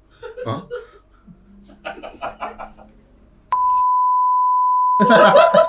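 Censor bleep: a single steady high-pitched beep tone cuts in abruptly about two-thirds of the way through and holds to the end, blanking out a spoken word. Quiet talk comes before it, and talk and laughter return over the tone near the end.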